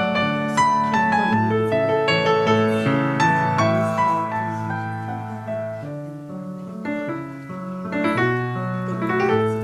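Solo piano playing a flowing piece of overlapping notes, softening for a few seconds past the middle and swelling again near the end.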